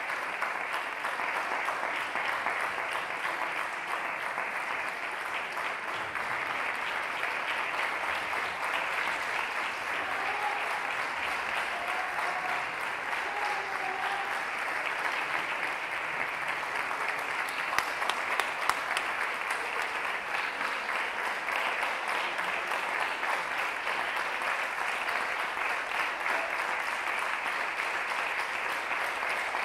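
Audience applauding steadily, with a few louder claps just past the middle.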